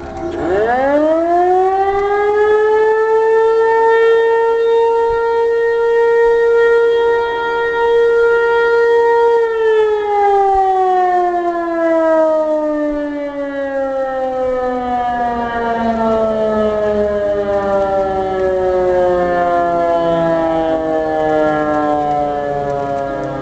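Outdoor tornado warning siren sounding its routine daily noon test. It winds up quickly to one steady tone, holds it for about eight seconds, then winds slowly down in falling pitch.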